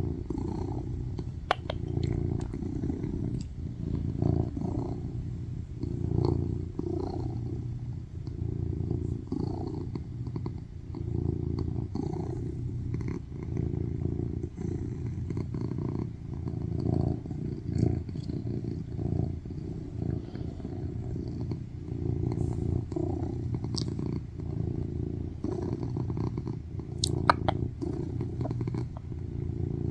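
Tuxedo cat purring loudly and steadily, the rumble swelling and fading with each breath about every two seconds. A couple of sharp clicks cut through, one near the start and a louder one near the end.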